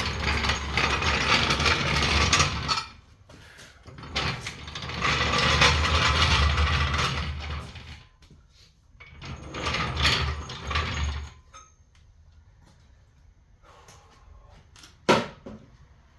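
A power tool runs in three bursts of a few seconds each, then a single sharp click near the end.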